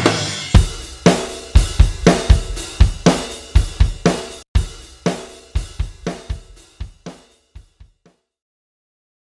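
Rock music soundtrack closing on the drum kit alone, with cymbal, snare and bass drum hits in a steady beat. The hits fade and stop about eight seconds in.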